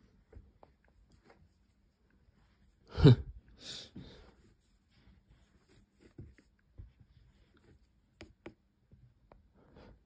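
Faint rustles and small clicks from a hand handling a plush dancing cactus toy, which stays silent because its batteries are dead. About three seconds in comes one short loud burst of noise, followed by a softer hiss.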